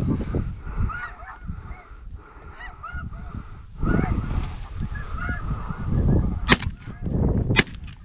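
Snow geese honking: many short, high, yelping calls repeating over and over. Near the end come two sharp knocks about a second apart.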